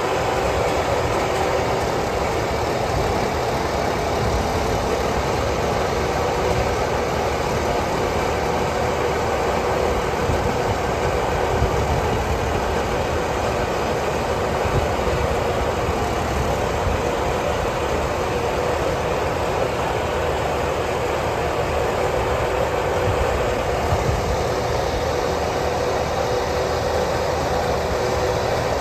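Rice combine harvester's engine running steadily, a constant machine drone with a steady hum through it.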